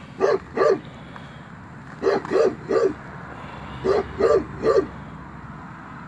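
A dog barking: eight short barks in groups of two, three and three.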